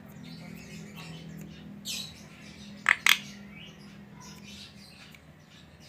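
Javan myna (jalak kebo) calling: faint chatter, a short rasp about two seconds in, then two loud harsh squawks in quick succession about three seconds in.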